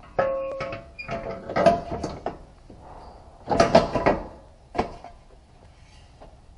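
Metal front bumper reinforcement bar of a Mini Cooper S R53 being handled and fitted against the radiator support: clanks and scrapes of metal on metal. A ringing clank comes just after the start, a louder cluster of knocks about three and a half seconds in, and one sharp knock near five seconds.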